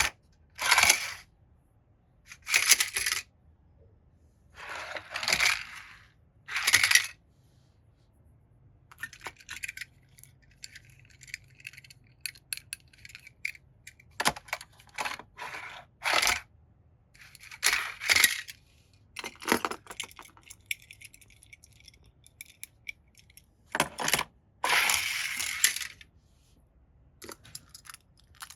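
Toy cars and their packaging being handled: irregular bursts of rattling, scraping and clinking, each about a second long, with short clicks in between.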